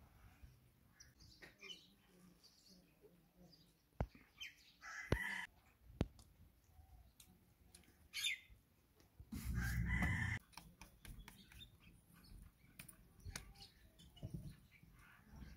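A rooster crowing in the background, one loud crow about two-thirds of the way through, with fainter chicken calls and a few sharp clicks.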